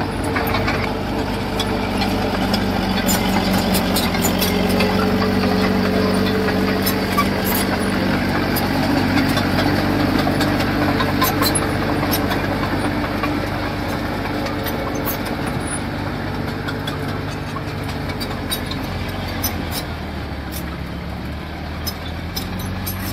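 Heavy construction machine's engine running steadily, with a tone that rises and shifts over the first several seconds and then settles, and scattered sharp clicks and clatter over it.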